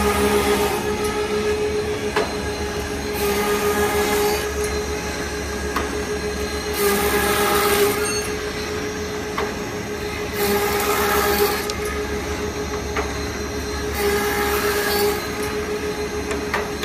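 Jela Stil beehive-frame bar machine running on its electric gear motor with a steady hum, cutting a wooden slat about every three and a half seconds. Each pass is a burst of cutting noise about a second long, with a light knock between passes.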